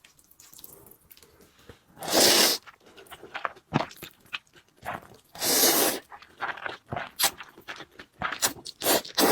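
Close-up eating of noodles: two loud slurps about two and five and a half seconds in, with chewing and small sharp clicks between and after them.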